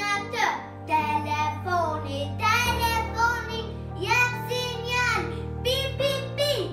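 A young girl singing a melody over a backing track of sustained chords, which change a few times.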